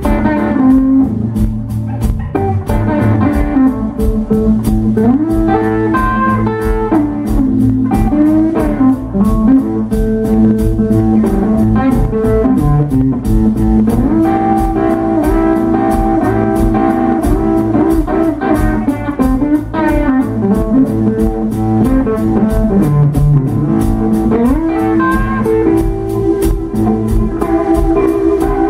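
A live blues band playing. An electric guitar takes the lead with bent, sliding notes over electric bass and a steady drum beat.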